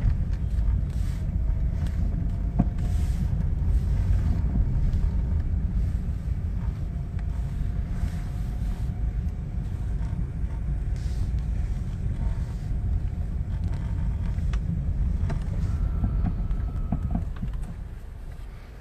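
A car on the move: steady engine and road rumble that fades down near the end.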